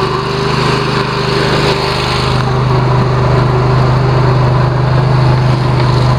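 Riding lawnmower engine running steadily while towing a trailer, its low hum growing stronger about two seconds in.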